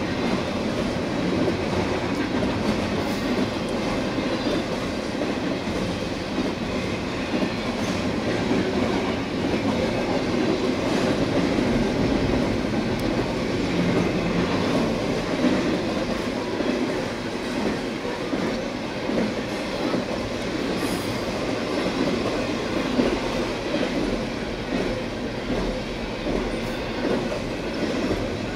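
Freight train cars rolling steadily past, wheels clacking over the rail joints with a continuous rumble and rattle.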